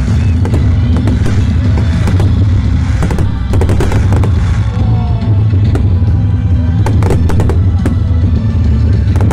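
Aerial fireworks bursting and crackling in quick clusters, over loud music with a heavy bass from the show's sound system.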